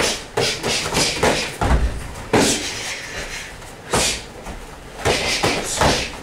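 Punches and kicks landing on bodies and padded gloves in full-contact karate sparring: an irregular run of sharp thuds, about a dozen, densest in the first two and a half seconds and again near the end.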